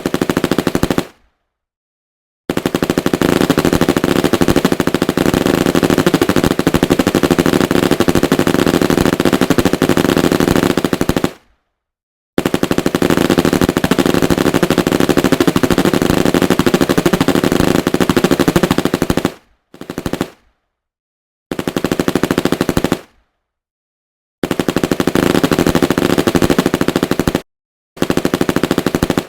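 9mm Uzi submachine gun firing close up in very rapid, high-pitched automatic bursts. There are about seven bursts, some lasting many seconds and others under a second, each stopping abruptly.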